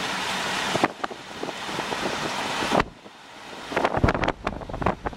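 Wind noise on the microphone of a moving car: a steady rush that cuts off sharply twice, then a run of irregular bumps and knocks.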